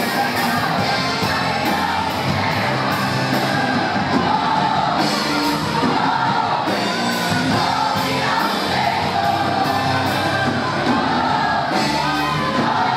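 Live gospel worship music: a women's choir singing with a band, over a steady beat.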